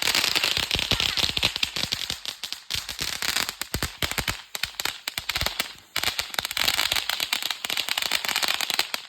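Consumer fireworks crackling: a dense stream of rapid cracks and pops. It thins in the middle, drops out briefly about six seconds in, then picks up again before cutting off suddenly.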